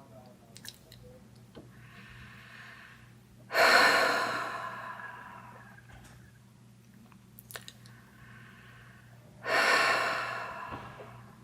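A woman breathing as a creepy horror effect: a quiet breath, then a sudden loud breath that fades away over a couple of seconds, heard twice about six seconds apart, with a few small mouth clicks between.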